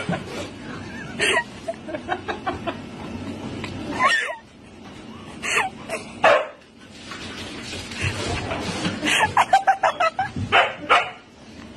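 A dog barking and yipping in short, separate calls, with a quicker run of them near the end.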